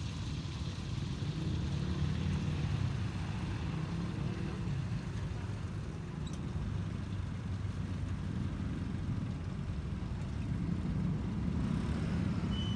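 Steady low rumble of street traffic, with a faint hiss of egg frying in a wok of hot oil.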